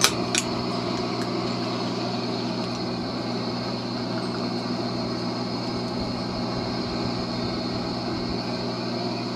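Shortwave radio receiver tuned to about 11490 kHz, putting out steady static with a low hum and a steady high tone. Two short clicks come right at the start.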